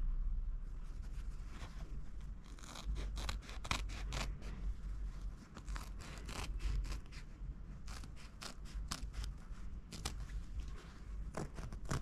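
Scissors cutting through lining fabric: a quick, uneven run of blade snips, several a second with brief pauses, as the blades work along a marked line.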